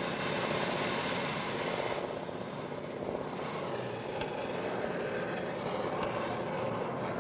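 Steady drone of the propeller engine of a de Havilland Otter aircraft as it approaches overhead.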